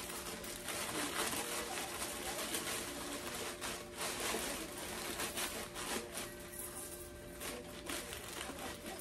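Clear plastic bag holding Frosted Flakes cereal crinkling as it is handled, with the flakes rustling and crackling inside in irregular bursts.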